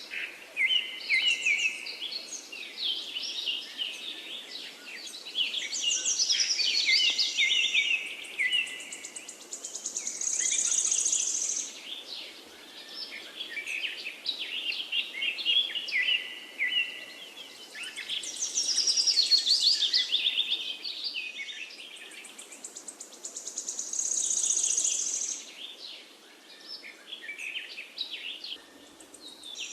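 Songbirds singing: a busy run of chirps and quick trills, with high trills that swell and fade in waves every few seconds.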